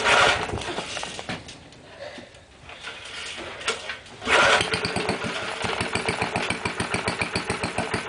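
Small 2 hp tiller engine being pull-started cold on choke: a loud pull of the starter cord at the start and another about four seconds in, after which the engine catches and runs with an even, rapid firing pulse.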